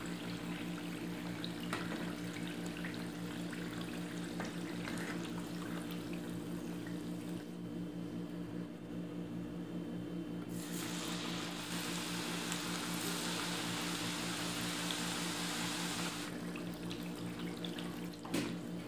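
Hot oil sizzling in a pan as murukku deep-fry, over a steady low hum. The sizzle turns brighter and louder from about ten seconds in until about sixteen seconds. A few clinks of a metal spoon come near the end.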